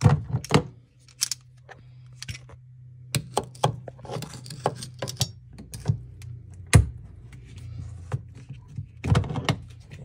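Locking pliers clamped on a faucet's metal retaining nut, clicking and knocking as the nut is worked loose to get at the cartridge. A series of sharp knocks, loudest at the start, about two-thirds through and near the end, over a low steady hum.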